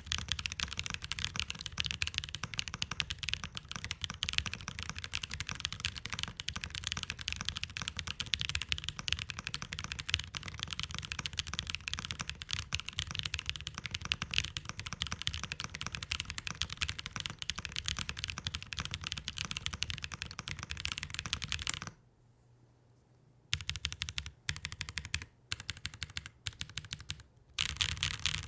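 Mechanical keyboard typing: a Fox Lab Sand Glass Ergo with Chosfox Hanami Dango switches in an aluminium plate, keys clacking in a fast, continuous stream. About three quarters of the way through the typing stops, then comes back in several short bursts with brief pauses between them.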